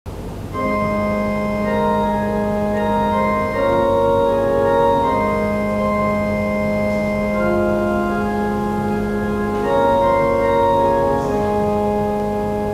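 Organ playing the slow introduction to a responsorial psalm refrain in A-flat: sustained chords that change every one to three seconds over long-held bass notes, tapering off near the end.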